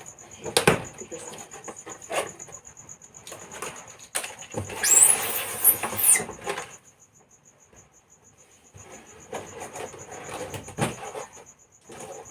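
Washing-machine carton being opened by hand: knocks of handling the cardboard, then a loud tearing rip of packing tape or wrapping lasting about two seconds near the middle. Crickets chirp steadily in the background.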